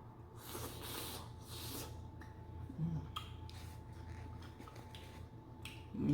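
Close-miked eating sounds from a mukbang of seafood boil in butter sauce: soft chewing and wet mouth noises, with a few short breathy bursts in the first two seconds and a brief hum of voice at the very end.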